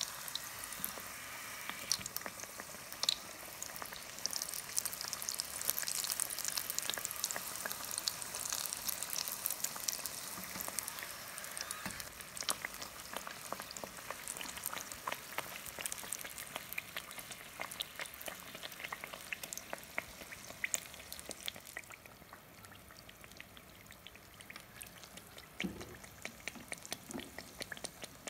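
Kachoris deep-frying in hot oil: a steady crackling sizzle of bubbling oil with many fine pops, growing softer for the last several seconds.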